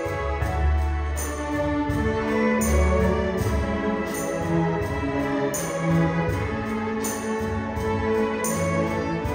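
Symphony orchestra playing, bowed strings carrying held notes over a low bass line, with a steady beat of accents.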